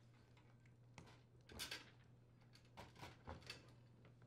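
Faint handling sounds of a dishwasher pump and motor assembly being pulled free of its plastic sump: a handful of short knocks and scrapes, the longest about one and a half seconds in, over a low steady hum.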